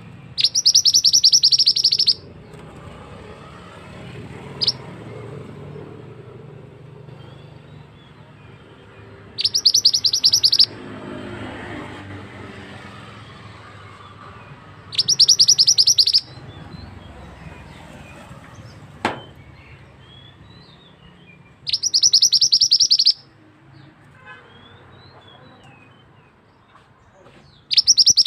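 Male mandi darah (mantenan) bird song played as a lure call: a loud, rapid, high-pitched trill lasting just over a second, repeated five times about every six seconds. Fainter bird chirps can be heard in between.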